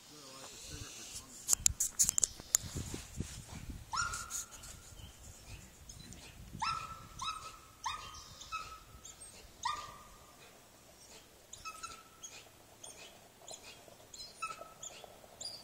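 Dog barking in single sharp barks about a second or more apart, starting about four seconds in. A cluster of loud knocks and clicks comes just before, about two seconds in.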